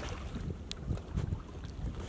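Wind buffeting the microphone in a steady low rumble, with a single sharp click about a third of the way in.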